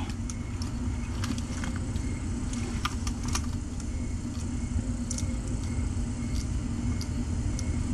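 Steady low background hum with a few faint, short clicks.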